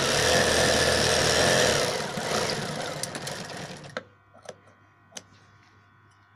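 Sewing machine running steadily while stitching a seam, slowing and stopping about four seconds in. A few sharp clicks follow as the thread is snipped with scissors.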